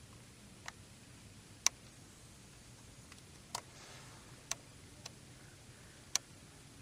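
Scattered sharp clicks, about six at uneven intervals with the loudest near the second mark, over a faint steady low hum.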